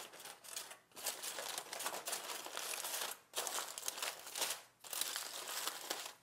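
Aluminium foil crinkling and crumpling as it is folded and rolled up by hand, in several stretches with short pauses between them.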